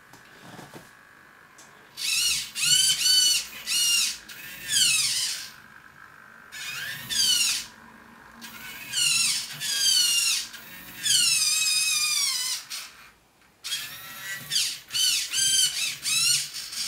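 The servo motor of a 3D-printed chain-drive linear actuator whines in repeated short runs as it drives the robot's ankle lever back and forth. The pitch of each run sweeps up and down as the motor speeds up and slows, with brief pauses between runs.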